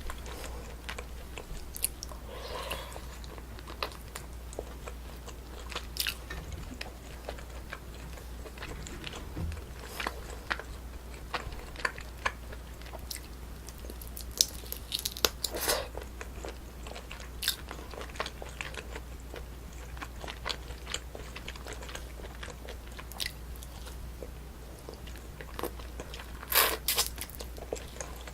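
Close-miked eating of braised spicy chicken with potatoes and rice: steady chewing with scattered crunchy bites and mouth clicks. There is a louder cluster about halfway through and another near the end, over a low steady hum.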